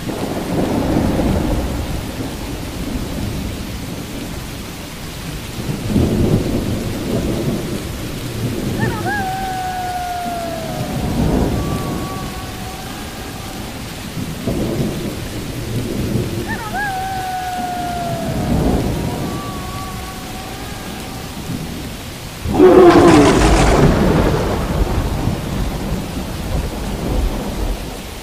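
Steady rain with thunder rumbling and rolling several times, then a sudden loud, sharp thunderclap near the end. Twice in the middle, a drawn-out falling tone sounds over the rain.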